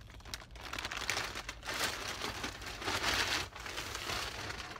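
Plastic mailer bag crinkling and rustling in irregular bursts as it is opened and a pair of jeans is pulled out of it, loudest around the middle.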